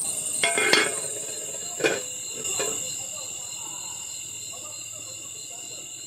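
Crickets and other night insects calling in a steady, high-pitched chorus. A few sharp knocks cut through in the first three seconds, the loudest near the start and about two seconds in.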